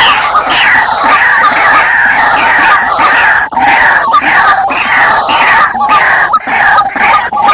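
Several white-breasted waterhens calling noisily together: a dense, overlapping run of loud, harsh calls repeated without pause.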